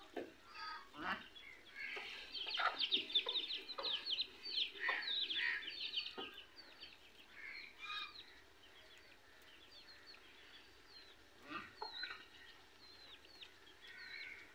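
Birds calling: a few seconds of rapid chattering calls about two seconds in, then scattered single chirps, with a few light knocks of a knife cutting cauliflower florets.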